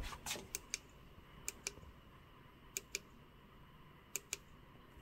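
Faint, sharp clicks from a wireless LED turn-signal set: a few quick clicks at the start, then close pairs of clicks roughly every second and a quarter.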